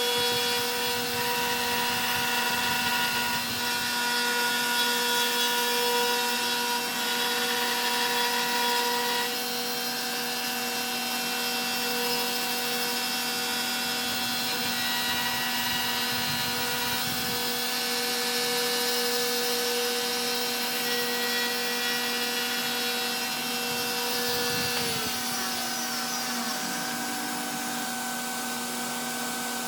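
Stepcraft M1000 CNC router's spindle whining steadily while V-carving wood, with louder cutting noise in the first third. A little before the end the spindle's pitch falls as it spins down, leaving a steady hum.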